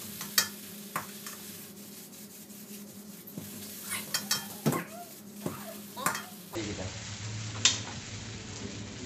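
Flat rice noodles sizzling in a wok, turned with a metal spatula that scrapes and clinks against the pan several times, most often a few seconds in.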